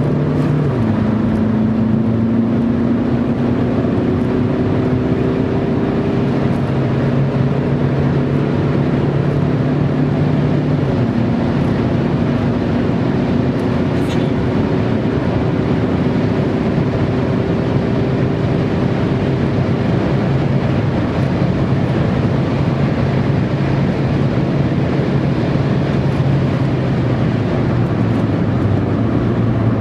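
Car engine and road noise heard from inside the cabin as the car is driven hard, the engine note climbing slowly and dropping sharply a few times, about half a second in and again around eleven and twenty seconds.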